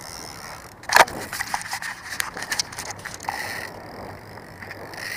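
A sharp knock about a second in, then a quick run of clattering knocks and rattles: gear and the boat-mounted camera being handled and shifted against the boat.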